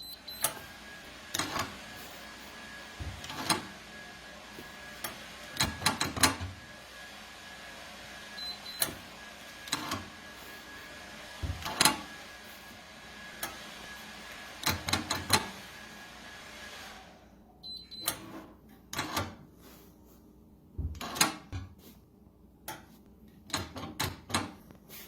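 Irregular sharp clicks and knocks, about two dozen, over a steady hiss that stops about two-thirds of the way through: the steel safe being handled, its door and lock worked.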